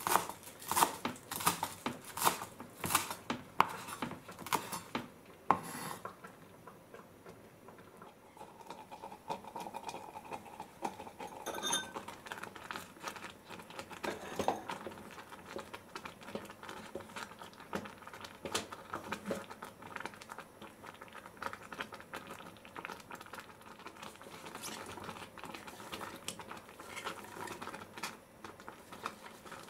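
Kitchen knife chopping leafy herbs on a wooden cutting board, about two chops a second, stopping about six seconds in. Then a wooden spatula stirs rice porridge in a clay pot, with soft scrapes and light knocks.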